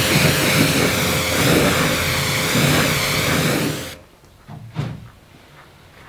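Pressure washer spraying water onto a car, a steady hiss of spray over the pump's hum. It cuts off suddenly about four seconds in, leaving a much quieter room with a few faint brushing sounds from a microfibre towel laid over the car.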